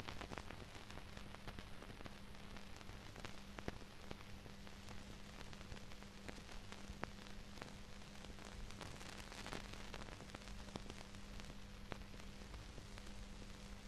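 Steady hiss full of scattered crackles and pops, over a faint low hum: the noise of an old film soundtrack with no music or dialogue yet.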